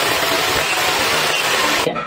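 Impact drill boring a deep hole into a stone-tile stair tread, a loud steady grinding that cuts off just before the end.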